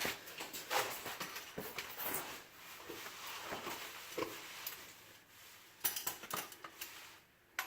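Irregular light metallic clinks, taps and rustling from tools being handled under the car at the oil drain plug, with a short run of sharper knocks about six seconds in.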